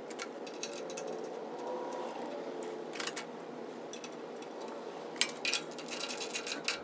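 Small metallic clicks and clinks of a machine screw and washer being fitted and driven into a steel bracket with a hand screwdriver: a few clicks about three seconds in, then a quick run of clicks near the end, over faint steady room noise.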